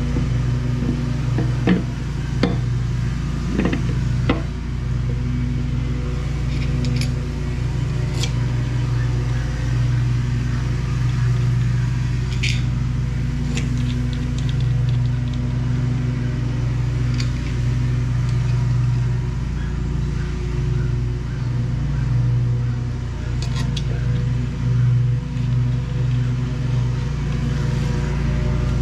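Lawn mower engine running steadily in the background as a low, even drone. Scattered light clicks and taps of a metal motorcycle stator and engine cover being handled on a workbench.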